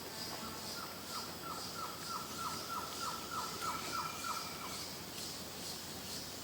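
Jungle ambience: a bird calls a run of about a dozen short, evenly spaced notes, about three a second, that stops about three-quarters of the way through, over a steady high insect chorus.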